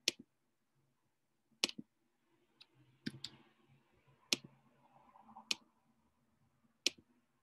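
Computer mouse clicks: about eight sharp, separate clicks, roughly a second apart, with faint room noise between them.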